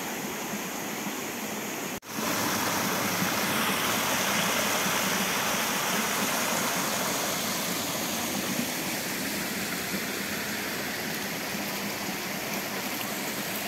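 Running water of a stream or small waterfall, a steady rushing. It breaks off for an instant about two seconds in, then returns louder and eases slightly toward the end.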